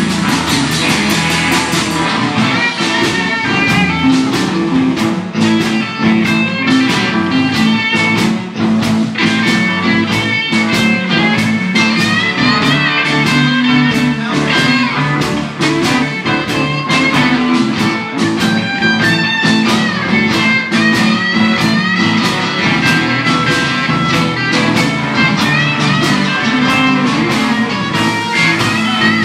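Live electric blues band playing an instrumental stretch: electric guitars over bass and a steady drum beat, with a lead line bending in pitch.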